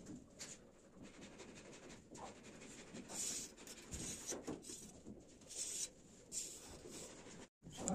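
Faint scratching and rubbing of a pointed tool on a sand-and-cement ceiling as a circle is scored out with a string, in short uneven strokes.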